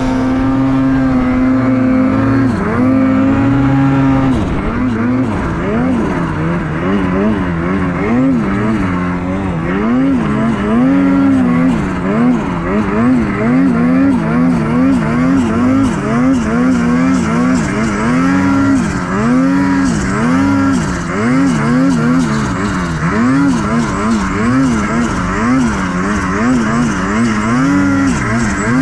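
Ski-Doo Gen 5 Turbo R snowmobile's turbocharged two-stroke engine revving, its pitch rising and falling over and over as the throttle is worked through deep powder.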